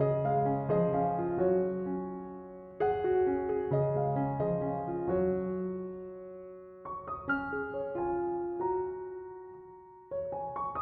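Background music: soft piano playing slow chords and melody notes that ring and fade.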